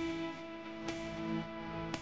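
Background music with plucked guitar notes over held tones.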